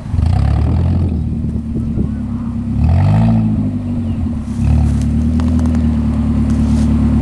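Mazda Protege5 rally car's four-cylinder engine revving hard while the car stands still. It is blipped up about three seconds in, then held at high revs from about four and a half seconds on.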